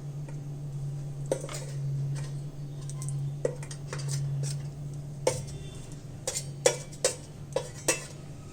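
Light clinks and taps of kitchen utensils and dishware while cutlets are handled and shaped, coming more often in the second half, over a steady low hum.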